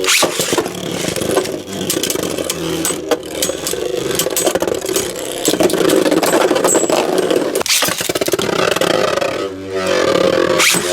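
Beyblade Burst spinning tops whirring and grinding, scraping and clattering as they clash, with sharp clicks of impacts.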